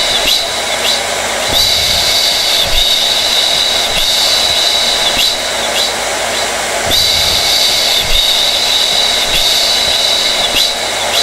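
Hair dryer running steadily: a rush of air with a high motor whine that drops away and comes back twice.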